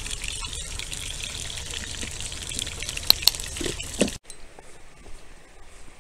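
Steady rushing of a mountain creek, with two sharp clicks about three seconds in and a couple of dull knocks just after. About four seconds in the rushing cuts off abruptly to a much quieter outdoor background.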